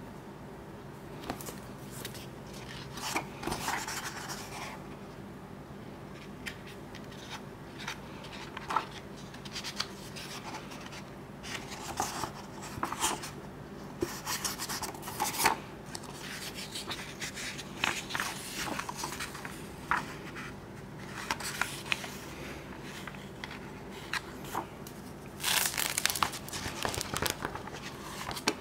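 Pages of a hardcover manga book being turned one after another by gloved hands: repeated short paper rustles and flicks, with a louder flurry near the end. A steady low hum runs underneath.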